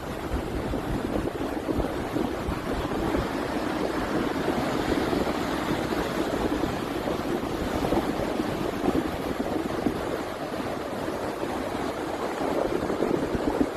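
Steady rush of wind and ocean surf, with wind buffeting the microphone in a low flickering rumble.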